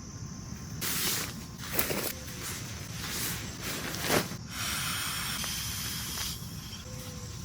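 Camping gear being set up: several short rustles in the first few seconds, then a steady hiss lasting about two seconds.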